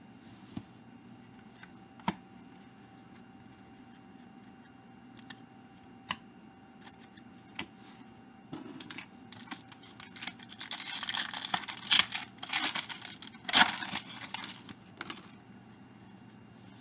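Trading cards and their foil pack wrapper being handled. Light scattered clicks come first, then about ten seconds in a few seconds of papery crinkling and tearing, loudest twice near the end.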